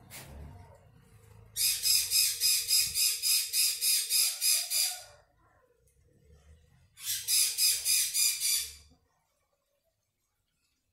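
A bird calling in two bouts of rapid, harsh high-pitched notes, about four a second: a longer run of about a dozen notes, then after a pause a shorter run of about seven.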